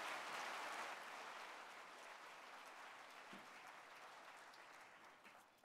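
Audience applauding, the clapping fading steadily and dying away near the end.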